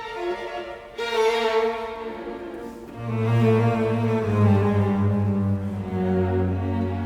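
Background music played on bowed strings, with sustained notes and deeper cello-like notes coming in about three seconds in.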